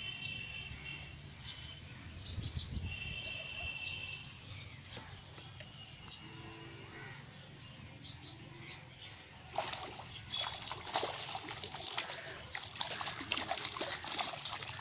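A hooked fish splashing repeatedly at the pond surface as it is pulled in on the line, starting a little past halfway and continuing in quick irregular splashes. Before that, quiet water with two short bird calls.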